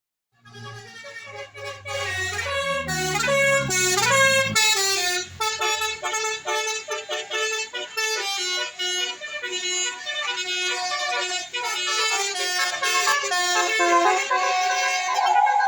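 Telolet musical multi-tone air horn on an Indonesian bus playing a fast, changing tune, loud and sustained. For the first four seconds a low rising drone runs under it, like a vehicle engine pulling up.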